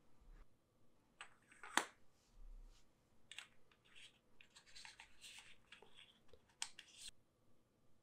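Faint handling of an aluminium flashlight being put back together: a sharp click about two seconds in, then light scratchy scraping and ticks as a threaded end cap is screwed on.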